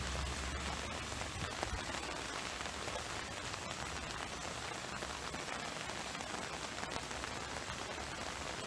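Heavy rain falling steadily, an even dense hiss of drops striking surfaces. A low rumble underneath fades out about two seconds in.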